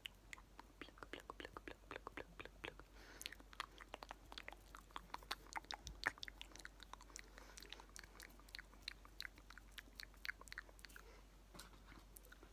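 Close-up ASMR mouth sounds: a rapid, irregular run of small wet clicks and smacks from the lips and tongue, with one sharper click about six seconds in.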